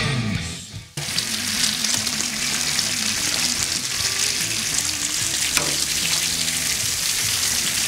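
Bacon strips sizzling on a hot Char-Griller Flat Iron gas griddle, a steady sizzle that takes over about a second in as background music fades out.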